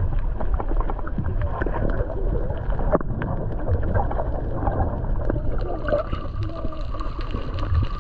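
Low rumble of wind and water around a boat on the sea, with faint voices in the distance and a thin steady whine joining near the end.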